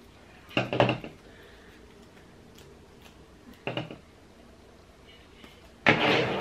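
Kitchen scissors snipping through tape-covered paper, two short crunchy cuts a few seconds apart. Near the end the scissors are set down on a table with a clatter.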